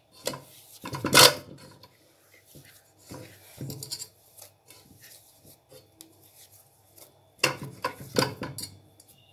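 A hand scraping and scooping soft dough against the inside of a metal pressure cooker pot. It makes irregular rubbing and scraping noises, loudest about a second in and again near the end.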